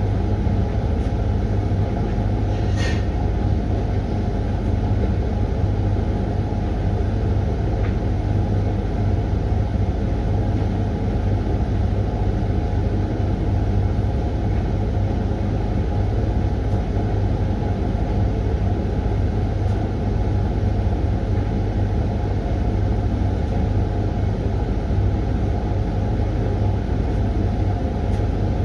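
Hoover washing machine running steadily partway through its Refresh 20-minute programme, a constant low machine hum with no change in speed. There is a short tick about three seconds in.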